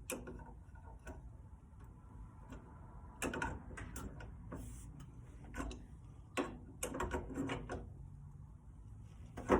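Scattered knocks and clicks of a wrench on metal air-line fittings as they are handled and tightened, with a cluster of louder knocks near the middle.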